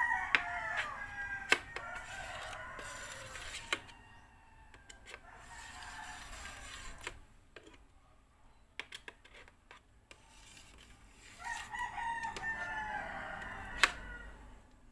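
A rooster crowing twice: a call that trails off about a second in, and another long crow starting about 11.5 seconds in. Scattered sharp clicks in between come from a knife tapping a metal baking tray while cutting set gelatin.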